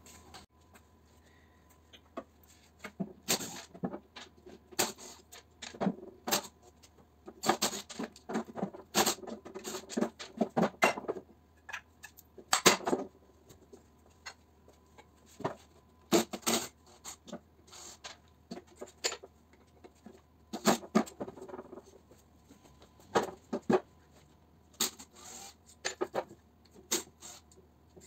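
Irregular clicks, knocks and clatter of hand tools and metal electric-motor parts being picked up, handled and set down on a metal-topped workbench, sometimes in quick runs, with a sharper knock about halfway through.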